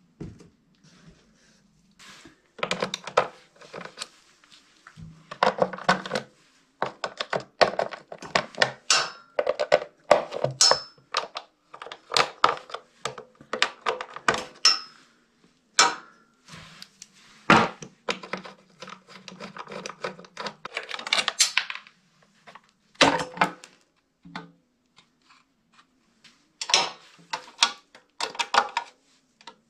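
Irregular clicks, clacks and rattles of hand work on a Honda EB6500 generator engine: a hex-bit screwdriver turning and clicking in the screws of the black plastic air-filter housing, and the plastic housing knocking as it is handled.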